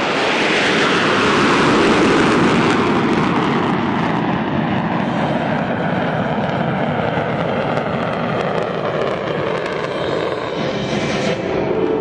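Jet aircraft flying past: a loud, steady rushing engine noise whose pitch falls over the first few seconds as the jets go by, loudest about two seconds in.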